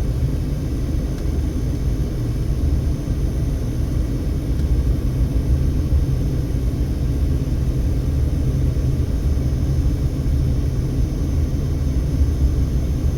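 Steady low rumble of a car driving slowly, heard from inside the cabin: engine and tyre noise at an even level.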